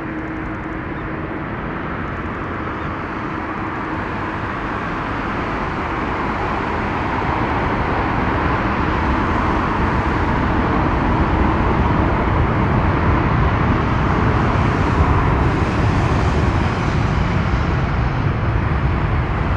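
Boeing 787-8 Dreamliner's GEnx-1B jet engines running at high power as the airliner rolls down the runway: a steady jet roar that grows slowly louder as it nears, with a deep rumble building in the second half.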